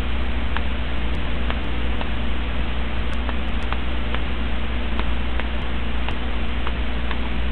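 Steady microphone hiss over a low electrical hum, with a few faint, irregular clicks.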